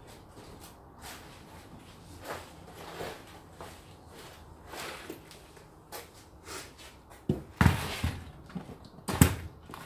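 Faint handling noises on a workbench, then a few loud knocks and thuds about seven to nine seconds in as a plastic drill-bit case is put down and handled on the bench.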